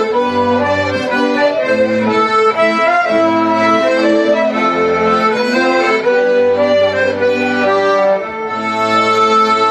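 Live folk band playing a mazurka for dancing, a tune in triple time. After about eight seconds it goes over into long held notes.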